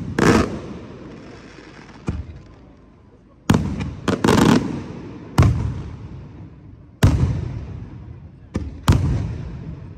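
Aerial firework shells bursting overhead: about eight sharp bangs, irregularly spaced a second or two apart, with a close pair about four seconds in and another near the end, each followed by a rolling echo that fades away.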